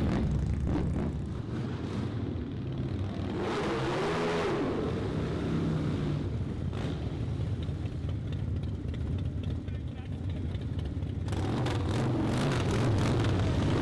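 Several V-twin cruiser motorcycles riding past at low speed, their engines running with a deep, low sound. One engine revs up and back down about four seconds in.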